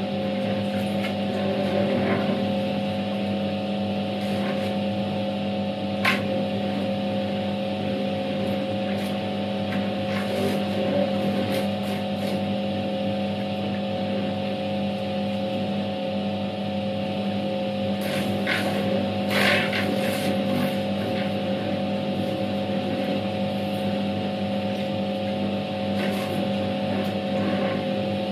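Światowit M4 impeller washing machine running a wash: a steady hum from its capacitor-run EDA SED-110-4 motor and impeller drive, under the swish of water and clothes churning in the tub. A few brief sharp sounds stand out about six seconds in and again near eighteen to twenty seconds in.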